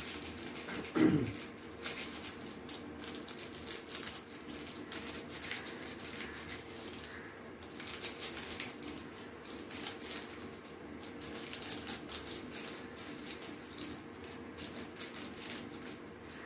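Plastic seasoning sachet crinkling and crackling as it is squeezed and shaken out over a cup noodle, many small crackles throughout. About a second in there is a short, louder low sound that falls in pitch.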